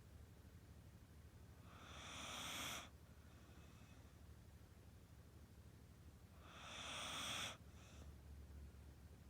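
Snoring in sleep: two long, hissing breaths about five seconds apart, each swelling and then cutting off sharply.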